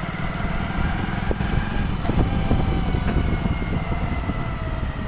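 Motor vehicle engine running steadily, a dense low rumble.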